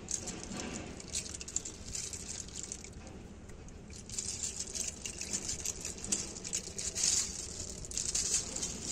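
Snail shells clicking and rattling against one another as hands dig through a heap of wet snails, in quick irregular clicks that grow busier about four seconds in.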